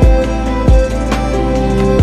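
Background music: sustained tones over a heavy low beat that hits about every 0.7 seconds.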